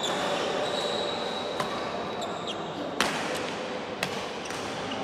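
Badminton shuttlecock struck by rackets: a few sharp cracks, the loudest about three seconds in, ringing briefly in a large hall.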